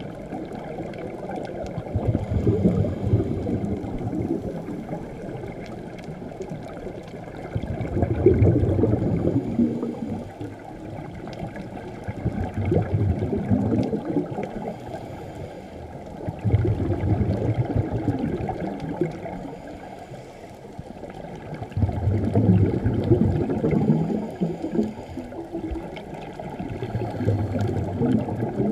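Scuba regulator exhaust: bursts of exhaled bubbles heard underwater, one about every five to six seconds, following the diver's breathing, with quieter pauses between the breaths.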